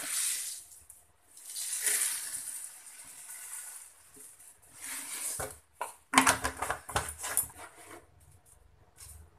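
Granulated sugar pouring into a plastic storage jar, a hissing trickle in a few pours over the first five seconds. About six seconds in comes a short run of clicks and knocks as the jar is handled.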